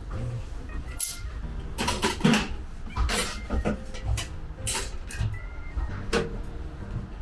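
Irregular knocks and short scrapes of hand tools working on sheet-metal bodywork, about a dozen over several seconds, over quiet background music.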